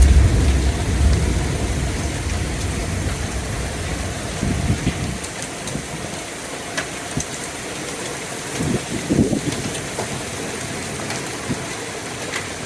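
Heavy rain pouring steadily, with a few scattered sharp ticks of hail striking. A deep rumble fades out over the first few seconds.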